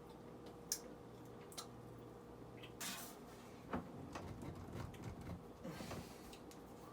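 Faint kitchen food-preparation handling noises: two sharp clicks, a short scrape, a knock, then a stretch of irregular scuffling and handling.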